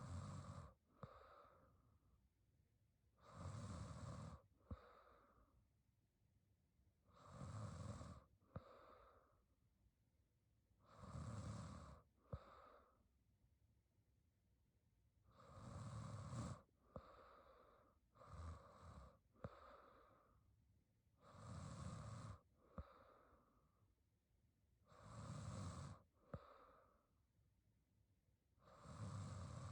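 A young woman snoring quietly in her sleep, one breath cycle about every four seconds: a longer, deeper snoring breath followed by a shorter, lighter one. Midway a few quicker, uneven breaths break the rhythm briefly.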